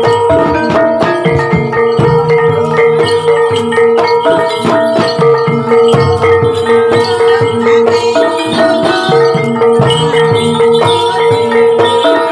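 Javanese gamelan music for a kuda lumping dance: struck metal mallet instruments playing a repeating melody over drum strokes, with a long held tone throughout.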